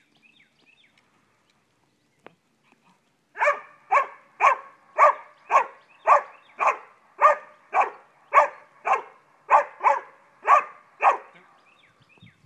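Dog barking in play, a steady run of about fifteen sharp barks at roughly two a second, starting about three seconds in and stopping shortly before the end.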